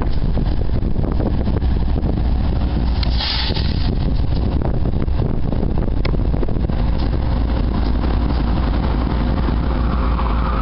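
Two GE diesel-electric locomotives, a D8-40CW and an ES40DC running light with no cars, passing close beneath with a steady, deep engine rumble.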